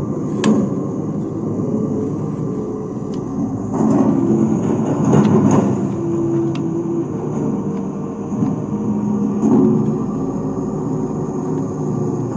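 Small electric motors and gearboxes of toy construction vehicles running, a whirring whose pitch shifts every second or two, with a few sharp clicks.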